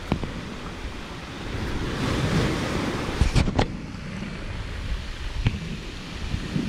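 Sea waves washing in, with wind buffeting the microphone; the wash swells about two seconds in. A few sharp knocks stand out, the loudest a quick cluster about three and a half seconds in.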